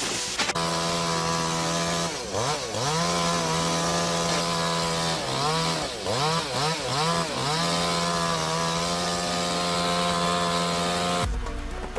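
Chainsaw running at high revs, its pitch dropping and climbing back as the throttle is eased off and opened again, with a quick run of several dips near the middle. It cuts off about a second before the end, giving way to a low rumble.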